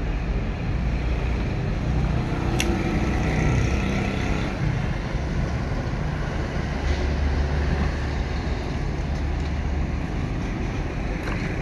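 Steady low rumble of road traffic, with a single sharp click about two and a half seconds in and a few faint ticks near the end.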